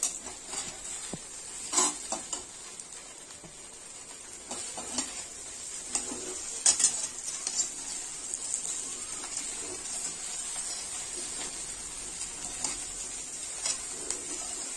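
Idli pieces stir-frying in oil in a metal kadai with a steady sizzle, while a perforated metal ladle turns them and knocks and scrapes against the pan several times, most sharply about two seconds in and again near seven seconds.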